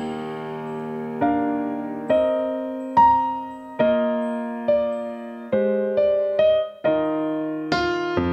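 Digital stage keyboard on a piano sound playing a slow unaccompanied passage of struck chords, about one a second, each left to ring and fade.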